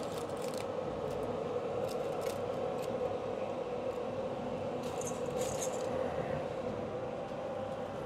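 Steady whir of an inline duct exhaust fan, with a few light clinks and scrapes as the microwave kiln's parts are lifted and handled.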